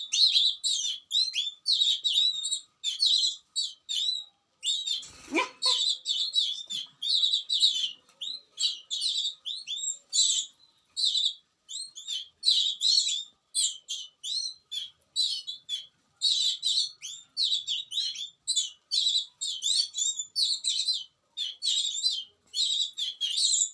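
Baby birds cheeping continuously in a rapid stream of short, high-pitched calls. A single brief sound rising in pitch cuts through about five seconds in.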